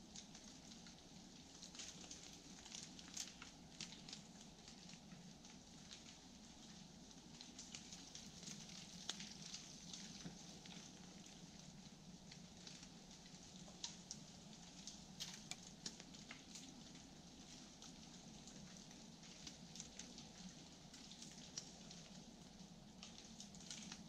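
Near silence: faint outdoor ambience with a low steady hum and scattered light ticks and crackles.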